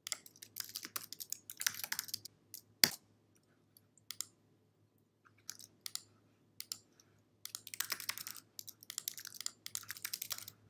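Typing on a computer keyboard: quick runs of keystrokes with short pauses between them. A single sharp click a little under three seconds in is the loudest sound.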